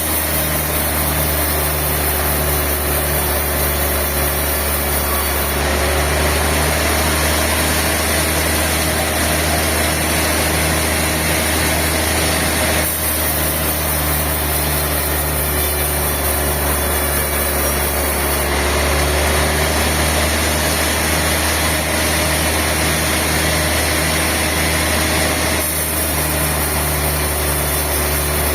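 Sawmill machinery running with a steady drone: a deep hum under a faint regular pulsing and a high hiss. The mix shifts abruptly several times.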